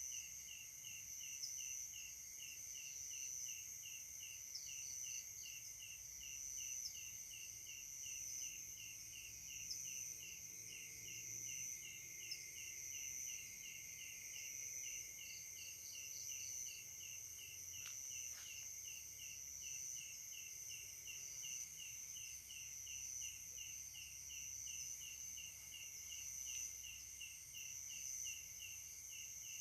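Night insect chorus of crickets and katydids: a steady high-pitched ringing, with one insect's chirp pulsing evenly a couple of times a second throughout.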